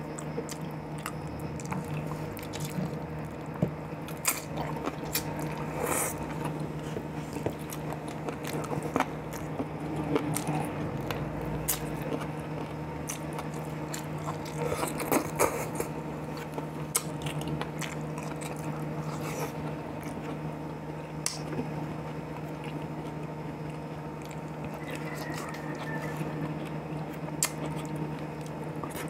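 Close-miked mouth sounds of a man eating boiled chicken and soup-soaked tamarind leaves by hand: wet bites, chewing and smacking clicks scattered throughout. A steady low hum runs underneath.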